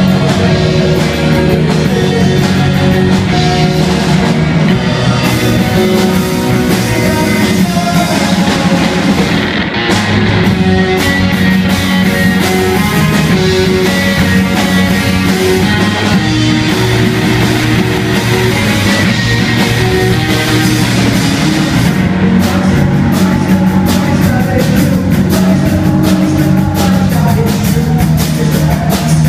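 Live rock band playing electric guitars and a drum kit, with the drums hitting harder and busier in the last several seconds.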